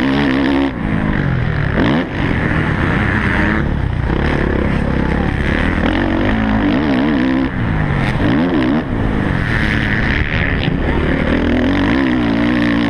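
Motocross bike engine at racing speed, heard on board. The revs keep rising and falling with throttle and gear changes, with a few brief dips where the throttle is chopped.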